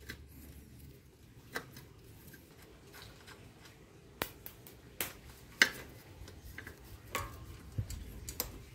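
Small metallic clicks and taps at irregular intervals, the loudest about halfway through, as a rusty cantilever brake arm, its coil spring and mounting bolt are handled and worked off a bicycle frame's brake post.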